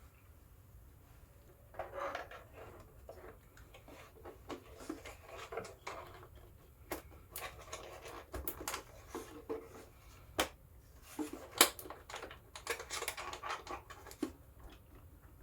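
RC scale truck body shell being handled and lowered onto its chassis: irregular light clicks, taps and rubbing, with a few sharper snaps in the second half as parts meet.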